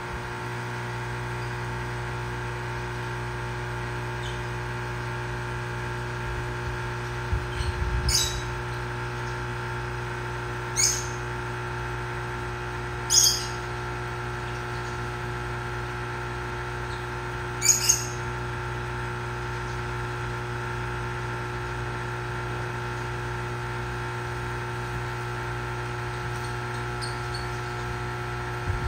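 Steady motor hum, as from a large aquarium's water pump, made of several fixed tones. About four short, high bird chirps sound over it, the first about eight seconds in and the last near eighteen seconds.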